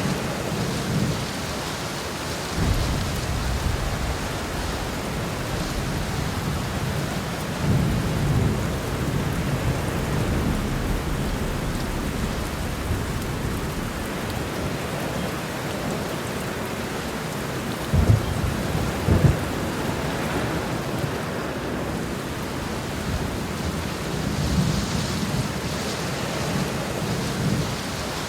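Heavy rain pouring steadily through a thunderstorm. Low thunder rumbles swell and fade several times, and two sharper, louder claps come a second apart a little past the middle.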